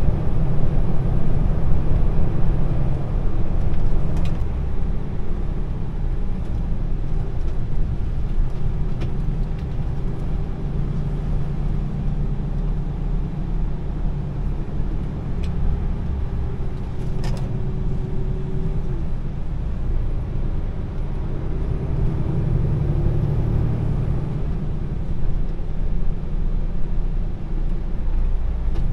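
Heavy truck's diesel engine running steadily under way, with low road rumble, and a couple of brief clicks along the way.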